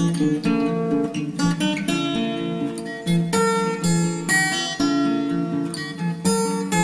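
Background music: an acoustic guitar plays a gentle plucked and strummed melody, a new note or chord every half second or so.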